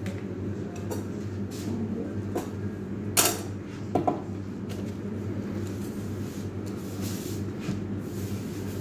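Scissors and flower stems handled and set down on a countertop: scattered knocks and clicks, the loudest about three seconds in and a quick pair a second later, over a steady low hum.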